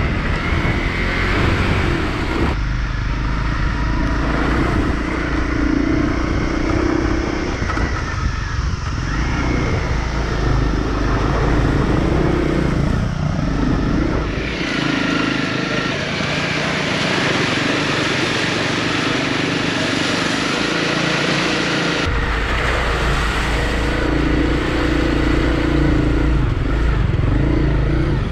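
Onboard sound of a Honda CRF250L's single-cylinder engine running as the bike rides a rough mountain track, with road noise. The sound jumps abruptly about three times, and the deep low rumble drops out for several seconds in the middle before returning.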